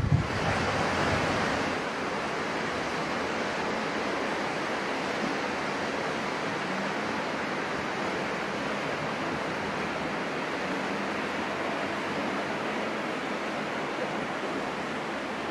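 The flooded Meuse rushing past as a steady noise of fast, turbulent water, a little louder for the first two seconds or so.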